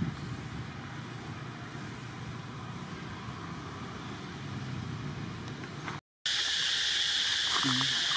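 Outdoor ambience: a low wind-like rumble with a faint steady high insect tone. About six seconds in, the sound cuts out briefly, then a loud, steady, high insect buzz takes over.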